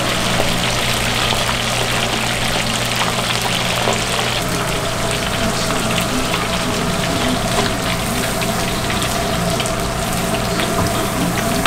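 Chicken gizzards deep-frying in a large wok of hot oil: steady sizzling and bubbling with fine crackles, over a steady low hum.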